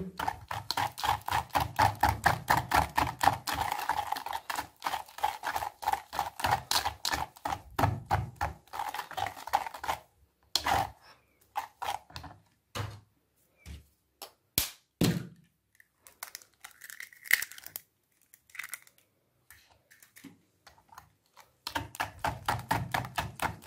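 Wire whisk beating eggs with oil and sugar in a plastic bowl, a rapid run of clicks as the wires strike the bowl. About ten seconds in the strokes thin out to scattered taps with short pauses, and near the end the fast beating starts again.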